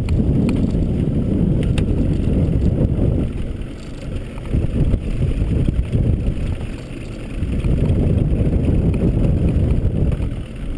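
Wind buffeting the microphone on an open boat at sea: a low, uneven rumble that rises and falls, easing briefly about four and seven seconds in.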